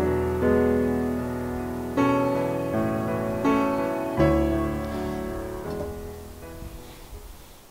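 Background piano music: slow chords struck every second or so, each ringing on, the music dying away near the end.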